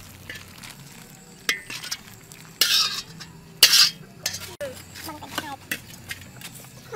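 Metal ladle scraping and clinking against a metal tray as thick sauce is spooned over fried fish, in a few short, sharp scraping bursts, the loudest two in the middle.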